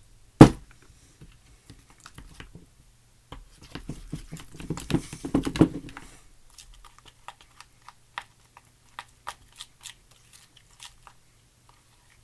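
One sharp knock, then a few seconds of wet crunching and crinkling as a slushy mixture is stirred in a bowl, then scattered light clicks.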